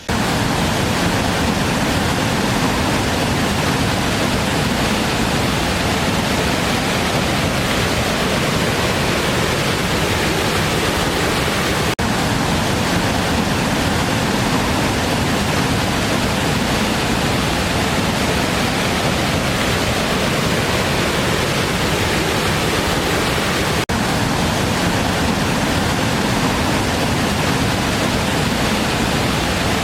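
Waterfall: a steady, even rush of falling water, full in both the deep and the hissing high range.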